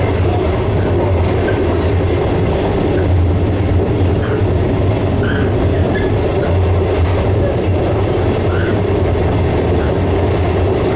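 JR West 115 series electric train running steadily at speed, heard from inside behind the driver's cab: a loud, even, low drone of the running gear and wheels on rail, with faint clicks over the track.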